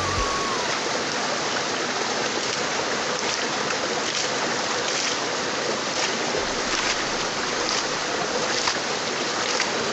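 Shallow rocky stream running with a steady rush of water, with splashing as water is thrown over the stones from about three seconds in.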